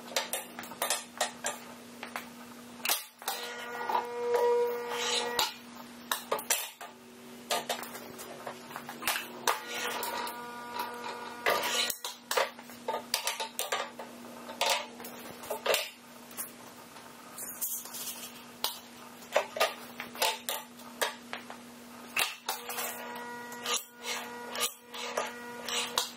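Baileigh BB-4816M electromagnetic sheet metal brake in repeated use: a busy run of metallic clanks, clicks and rattles from the sheet and the bending leaf. Under it is a steady electrical hum from the clamping magnet, which cuts off and comes back several times as the clamp is released and re-energised between bends.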